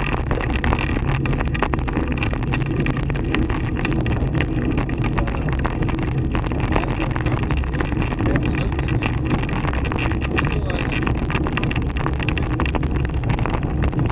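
Handcycle rolling along a road: a steady low rumble of tyres and road with constant small rattles from the frame, and wind on the microphone.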